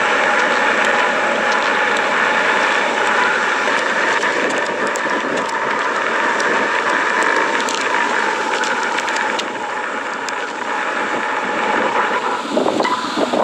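Steady, loud rushing hiss from underground, with scattered crackles and a few stronger surges near the end: the sound of steam or other gases being forced up to the surface around the lava.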